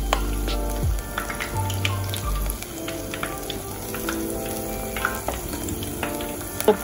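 Battered snapper pieces deep-frying in hot oil, a steady sizzle with many small crackles and pops. Soft background music plays underneath, and a sharp tap sounds near the end.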